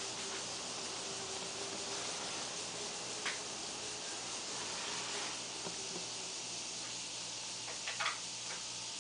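Steady hiss of room and recording noise, with a few faint short clicks, one about three seconds in and a small cluster near the end.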